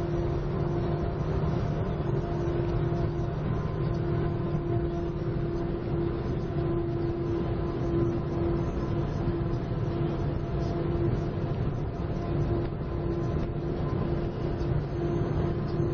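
Steady drone inside a car's cabin at highway speed: a constant engine hum over tyre and road noise.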